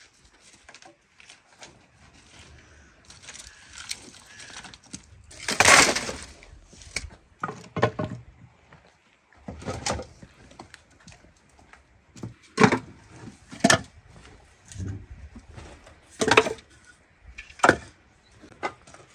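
A run of irregular knocks and clatters, about a dozen, with a longer scraping rush about six seconds in.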